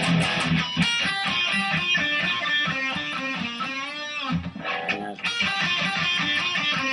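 Custom Ibanez Fireman electric guitar played on its bridge pickup with the tone control not yet turned down: a lead phrase of picked notes, with bent and wavering notes around the middle.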